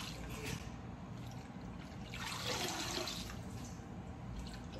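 Kitchen tap running cold water into a bowl of shredded green papaya and carrot in a stainless steel sink, splashing as hands rinse the shreds. The splashing grows louder about two seconds in and eases again.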